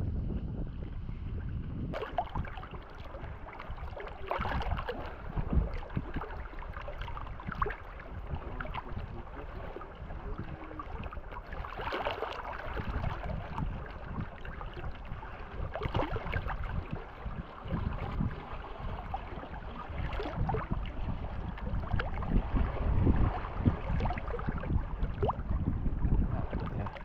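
Choppy water splashing and lapping against an inflatable packraft as it is paddled across a loch, with irregular slaps of water and wind rumbling on the microphone.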